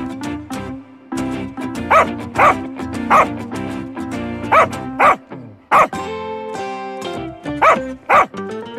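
Dog barking, about eight short barks mostly in pairs, over light background music.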